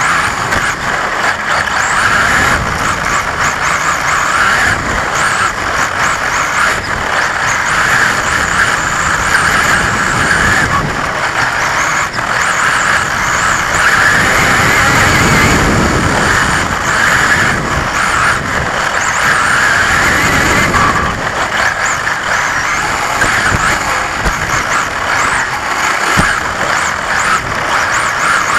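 On-board sound of an XRAY XB4 1:10 electric 4WD buggy driving laps on astroturf: the electric motor and drivetrain whine swells and fades with the throttle over a steady hiss of tyre and rushing-air noise.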